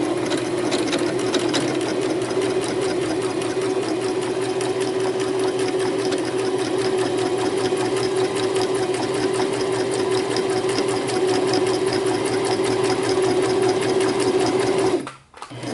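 Husqvarna electric sewing machine running steadily at speed, a fast even ticking of the needle strokes over a steady motor hum, sounding a little rough; it stops near the end. The needle is in backwards, so it is not catching the bobbin thread and forming stitches.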